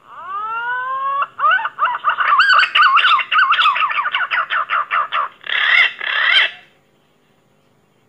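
Pink-necked green pigeon song: a rising whistle for about a second, then a quick run of warbling whistled notes, ending in two harsher, rasping notes.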